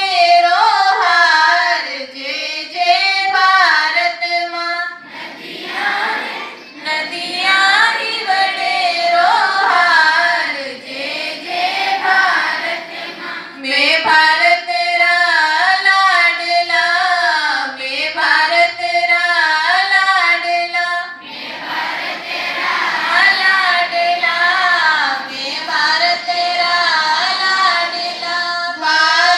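Schoolchildren, girls' voices to the fore, singing a prayer together in unison, phrase after phrase.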